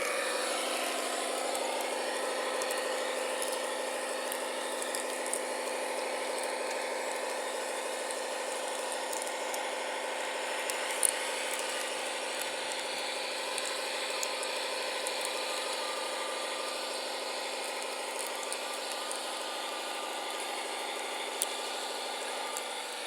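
Small electric motor and gearing of a radio-controlled model machine running at a steady speed, an even whine with a couple of faint clicks.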